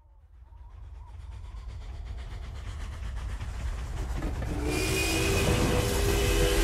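Train approaching: a low rumble that swells steadily from near silence, with several held tones coming in about four and a half seconds in.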